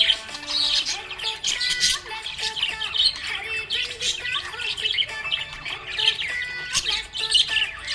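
Budgerigars chirping and squawking in quick, busy calls without a break, over background music with held notes.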